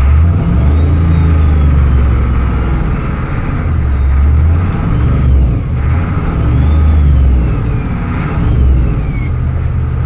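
Ford 7.3 IDI diesel with a new Borg Warner S257 SX-E turbo accelerating hard in second gear. The engine's low rumble swells and eases several times as the throttle goes on and off, and the turbo whistles in rising and falling sweeps over it.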